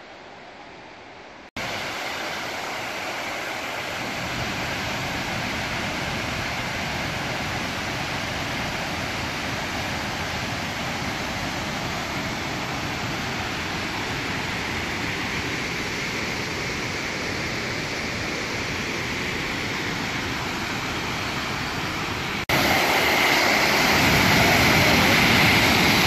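Steady rushing of a waterfall, starting abruptly after a brief quieter stretch and jumping much louder near the end, when heard right beside the falls.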